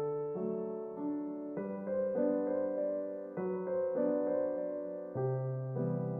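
Background music: slow, soft piano (electric piano tone) playing sustained chords that change every second or two.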